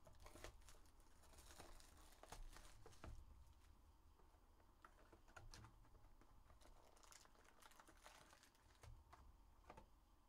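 Faint crinkling and scattered light clicks from a cardboard trading-card hobby box being opened and its wrapped packs pulled out and set down.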